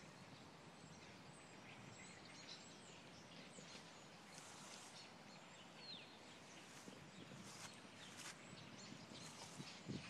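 Faint calls of a large flock of small dark birds flying overhead: scattered short chirps and whistles, with one falling whistle about four and a half seconds in, over a faint outdoor hiss.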